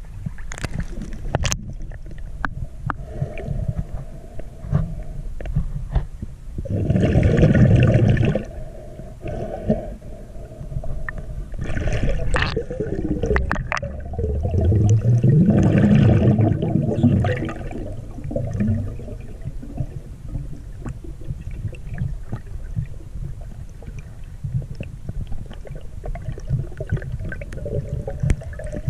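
Lake water sloshing and gurgling around a camera held at the surface and then under the water, muffled and churning, with two louder surges about seven and fifteen seconds in.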